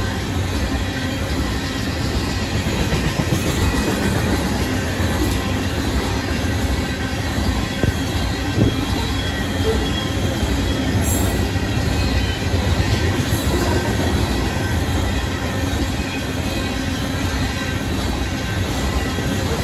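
Union Pacific coal train's hopper cars rolling past quickly, a steady rumble of steel wheels on rail with a faint high wheel squeal.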